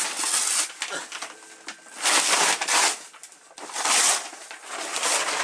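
Brown paper wrapping rustling and crinkling as it is pulled open by hand, in several loud bursts, the loudest about two and about four seconds in.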